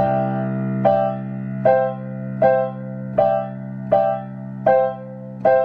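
Digital piano: a right-hand chord repeated eight times at an even pulse, a little more than once a second, over low left-hand notes held underneath.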